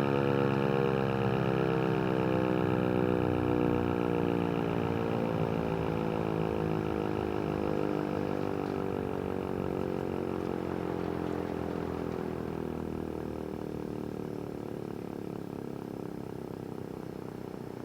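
ASC T-128 outdoor warning siren winding down: a steady pitched tone with many overtones sinks slowly in pitch and fades as the rotor coasts down after the test signal.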